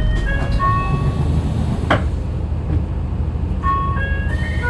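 Door chime of a 2007 Hino Blue Ribbon II city bus: a short run of electronic chime notes stepping between pitches, played about half a second in and again near the end. Under it the bus's diesel engine idles. A single sharp click comes about 2 seconds in.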